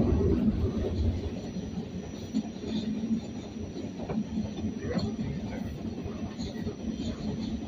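R46 subway train running along the track, heard from inside the car: a steady rumble of wheels and running gear, a little louder in the first second or so.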